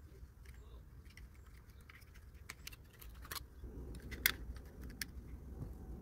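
Scattered light metallic clicks and clinks of small metal parts being handled, with one sharper click about four seconds in, over a faint low hum.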